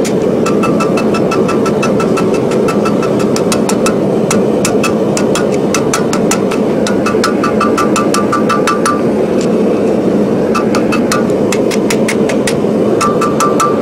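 Hand hammer striking hot steel on an anvil, rapid blows about four a second with a ringing anvil tone, as the end of a bar is rounded into a ball. The blows stop briefly about nine seconds in, then resume. A steady low rumble runs underneath.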